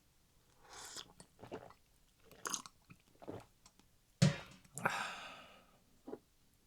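Close-miked eating sounds: a series of separate bites and chewing noises, with a sharp knock about four seconds in.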